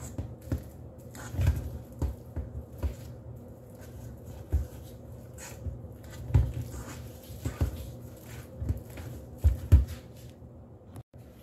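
Overripe bananas being mashed with a fork in a stainless steel bowl: irregular soft thuds and clinks as the fork presses through the fruit and strikes the bowl.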